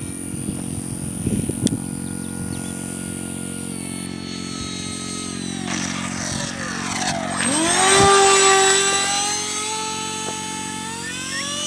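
Whine of a model jet's 64 mm five-blade electric ducted fan driven by a 4500kv outrunner motor, on the runway and passing close, loudest about eight seconds in. The pitch drops as it slows, then climbs again near the end as the throttle is opened for a touch-and-go.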